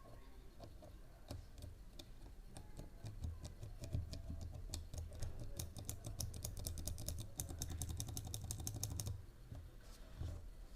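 Keys on Cherry MX mechanical switches being pressed on a switch tester board. There are scattered presses at first, then a fast run of rapid presses for about six seconds that stops abruptly, and a few last presses near the end.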